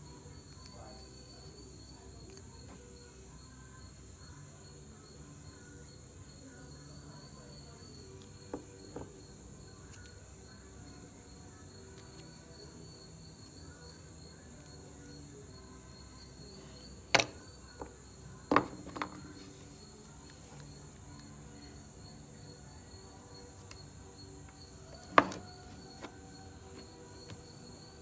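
Steady high chirring of crickets and other night insects, with a few sharp clicks and taps: a small one about a third of the way in, a loud pair a little past halfway, and the loudest near the end.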